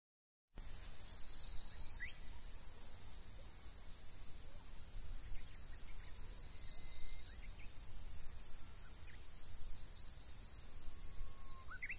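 Steady high-pitched buzz of an outdoor insect chorus, with a few short bird chirps.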